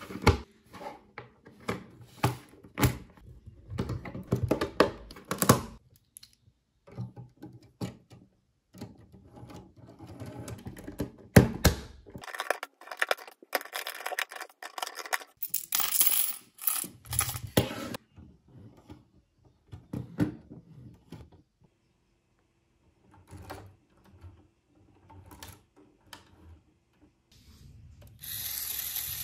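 Lego Technic plastic beams and pins clicked and pressed together by hand: irregular sharp clicks and small plastic rattles, dense at first, with a few seconds of rustling in the middle, then thinning out near the end.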